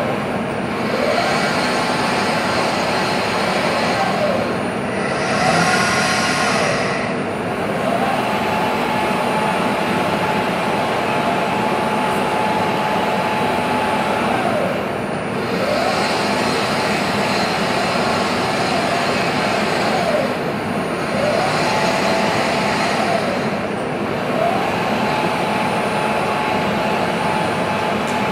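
SEF Roboter industrial robot arm's servo drives whining as it turns a rotational-molding mold: a tone that rises, holds and falls back with each move, about six times, over a steady rushing noise.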